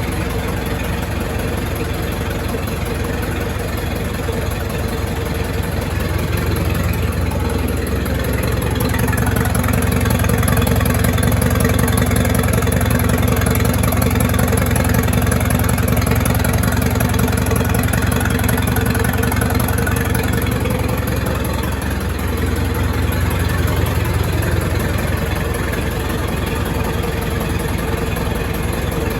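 1928 Farmall Regular's four-cylinder engine running steadily, picking up speed and getting louder about eight seconds in, then settling back to a slower run a little past twenty seconds.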